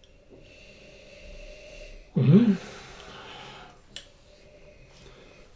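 Whisky being nosed from tasting glasses: quiet sniffing and breathing over the glass, with a short appreciative 'mm' hum about two seconds in, the loudest sound. A small click a couple of seconds later.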